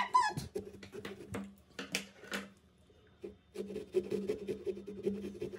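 Small pumpkin-carving saw cutting through the rind of a pumpkin: scattered scrapes and clicks, then a run of quick back-and-forth sawing strokes from a little past halfway.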